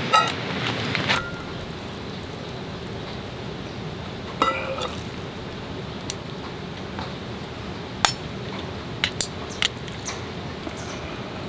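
Metal camping pot and cookware clinking: a ringing metallic knock at the start and another about four and a half seconds in, then a handful of short, sharp clicks, over a steady hiss of rain.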